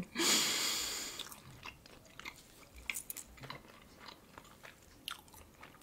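A breathy rush of noise at the start that fades over about a second and a half, then faint scattered mouth clicks and a sip from a champagne glass.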